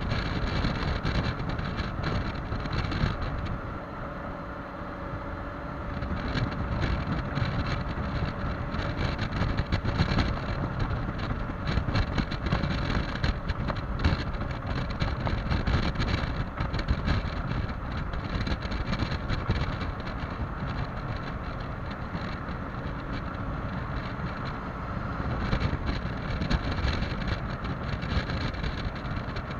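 Heavy wind buffeting on the microphone of a Yamaha XMAX 300 scooter ridden at high speed, with the single-cylinder engine's steady drone underneath. The wind eases for a couple of seconds about four seconds in.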